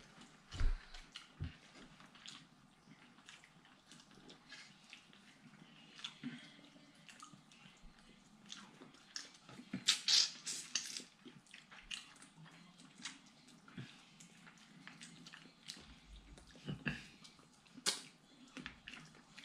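Close-up eating sounds of a seafood boil meal: chewing and mouth noises with scattered small clicks and taps, and a louder cluster of crunching about halfway through.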